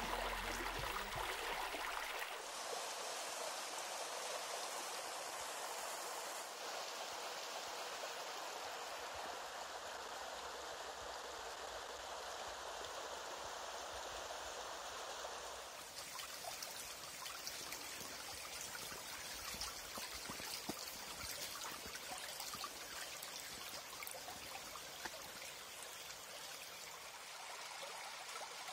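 Water running along a levada, a narrow irrigation channel: a steady rushing and trickling flow. Its tone changes abruptly about two seconds in, again around six seconds, and around sixteen seconds.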